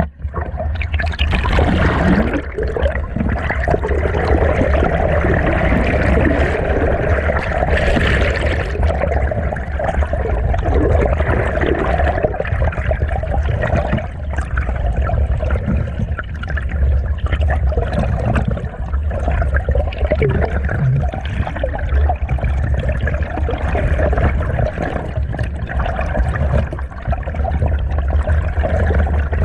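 Stream water heard underwater through a submerged camera: a steady, muffled rushing and gurgling over a deep rumble.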